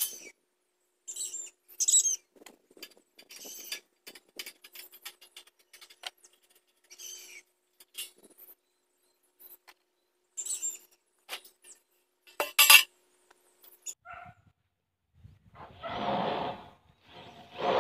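Metal clicking and scraping of hand tools working on the steel frame of a container house being taken apart, in short irregular bursts. Near the end a rooster crows.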